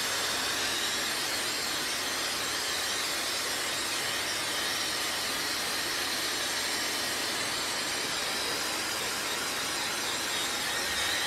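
Hand-held hair dryer running steadily, blowing air onto hair with a constant rushing hiss.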